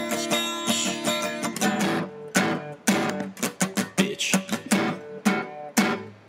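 Guitar music with no singing: ringing chords for about the first two seconds, then a run of short, sharply struck notes, a few a second.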